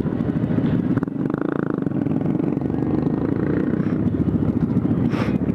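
Honda Grom minibike's single-cylinder engine running at a steady low speed with its muffler gone, a raw, rapid open-exhaust pulse. A short sharper sound cuts in about five seconds in.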